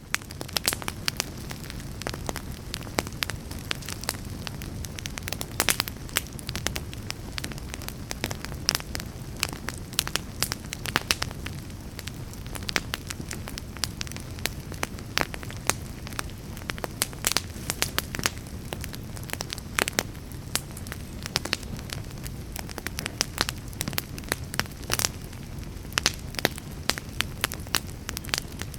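Wood fire burning with a steady low rumble and frequent sharp crackles and pops.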